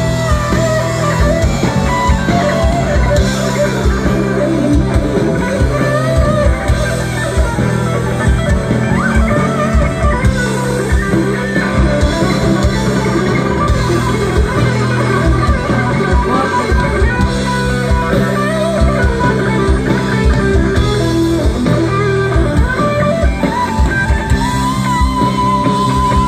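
Live band playing an instrumental rock passage: guitar over bass and drum kit, loud and steady.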